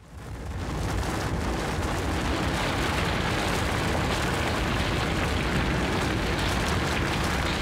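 Loud, dense rumbling noise, like a cave shaking or something big breaking through rock. It swells in over the first second and then holds steady.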